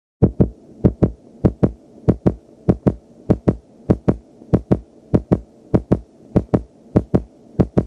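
Heartbeat sound effect as heard through a stethoscope: steady pairs of low lub-dub thumps, about one and a half beats a second, over a faint hum. It starts about a quarter second in.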